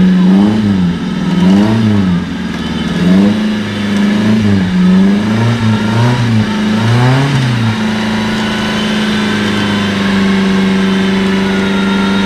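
Off-road 4x4's engine revved up and down again and again, then held at a steady rev from about eight seconds in, as it works its way up a muddy bank.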